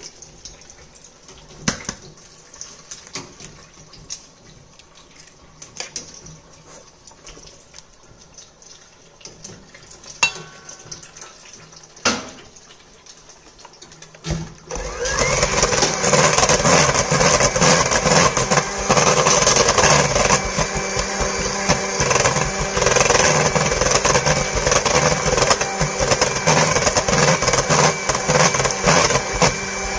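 A few light knocks, then about halfway through an electric hand mixer starts and runs steadily, its beaters churning cake batter in a stainless steel bowl as an egg is beaten in.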